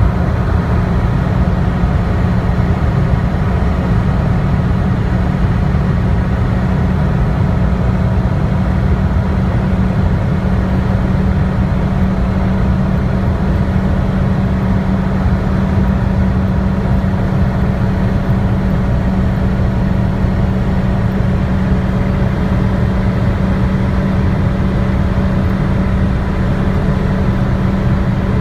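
Daewoo Nexia 1.6-litre four-cylinder engine running hard at a steady pitch during a high-speed run toward 200 km/h, with a constant drone and heavy road noise.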